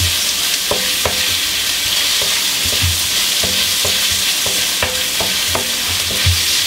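Sliced zucchini sizzling as it is stir-fried in a wok, a steady hiss of frying. A wooden spatula knocks and scrapes against the wok about twice a second, each knock with a short ring from the pan.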